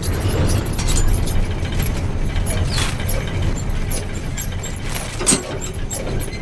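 Mechanical rumble with rapid metallic clicking and rattling, like machinery running inside a metal duct; a sharper knock about five seconds in.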